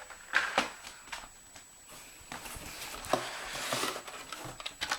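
Diecast toy cars being handled: scattered light clicks and knocks, with a stretch of rustling in the middle.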